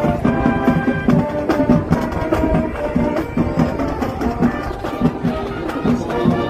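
Marching band playing: horns holding a tune over a steady drum beat.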